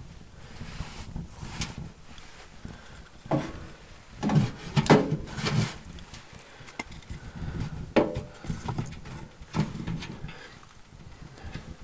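A few sharp knocks and clatters of hard objects being handled, some with a short ring, bunched about three to five seconds in and again near eight and nine and a half seconds.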